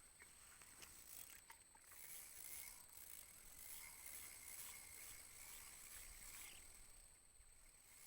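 Near silence: faint outdoor ambience with a thin high hiss and a few soft clicks.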